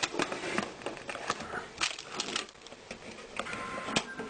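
Handling noise from a computer case and its parts: scattered clicks, taps and light rustles. A faint steady tone comes in about three seconds in.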